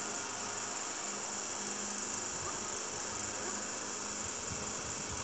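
Steady high-pitched drone of insects, with low rumbling near the end.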